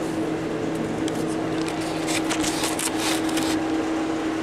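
A steady mechanical hum holding an even pitch throughout, with a cluster of light clicks and rattles from about two to three and a half seconds in as a hand handles the metal plow pump parts.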